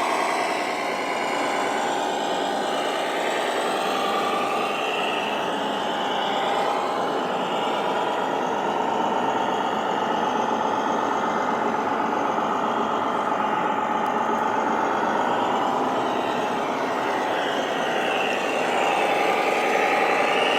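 Radio-controlled scale construction machines running: a steady engine-like drone with motor whines that slowly rise and fall in pitch.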